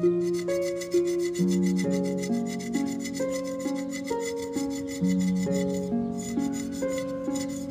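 Background instrumental music: a melody of plucked notes changing about twice a second over a fast, even ticking beat.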